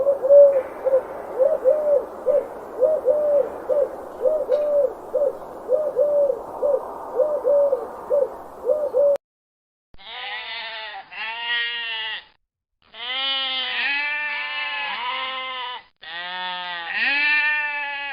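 Animal calls: a run of short hoots on one pitch, repeated evenly about one or two a second for roughly nine seconds over a steady background hiss, then after a short gap a series of longer bleating calls that fall in pitch.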